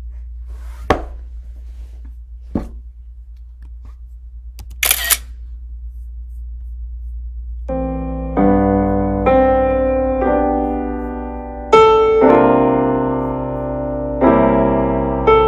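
A steady low hum with a few sharp clicks, then, about eight seconds in, jazz piano chords start, each chord held a second or two before the next.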